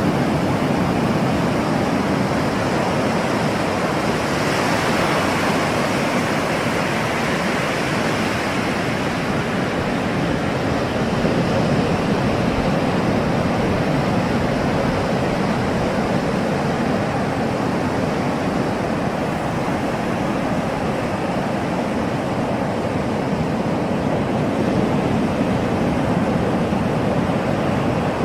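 Ocean waves surging on a shore, a continuous rushing wash that swells slightly a few seconds in.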